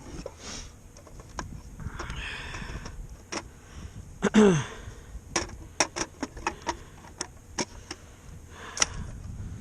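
Hand tools and parts being handled while swapping a walk-in freezer's defrost timer: a string of sharp clicks and taps, a spell of rustling about two seconds in, and one short falling squeak about four and a half seconds in.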